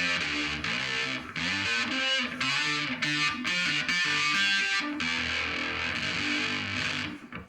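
Electric guitar played with heavy fuzz distortion through a pedal chain of an Analogman Sun Face fuzz, a Mu-Tron phaser and a Behringer octave divider, a riff of notes and chords. The playing dies away near the end.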